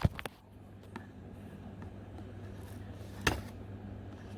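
Cardboard box being opened by breaking through its packing tape: a couple of sharp clicks near the start, faint rubbing and handling, and a sharp crack about three seconds in, with another near the end.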